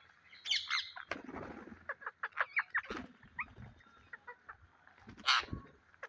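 A flock of rose-ringed parakeets giving many short chirps and squawks, with wings flapping as they feed; one louder burst comes about five seconds in.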